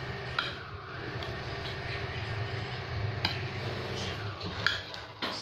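Metal fork stirring and scraping through a wet grated-banana mixture on a ceramic plate, with a few light clicks of the fork against the plate. A steady low hum runs underneath.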